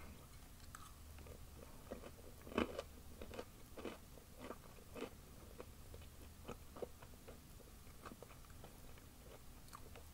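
A person chewing a bite of oven-toasted waffle: faint, irregular crunches and wet mouth clicks, the loudest about two and a half seconds in.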